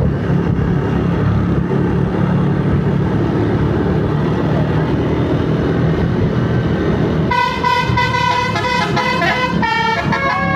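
A bus's engine running with a steady low rumble; about seven seconds in, its multi-tone Basuri telolet horn starts playing a tune of quick, changing notes, ending with sliding notes as it carries on.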